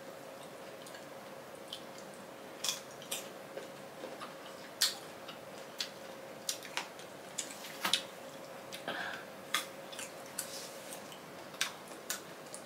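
Crisp green mango being chewed: scattered crunches and wet mouth clicks at irregular moments, over a faint steady hum.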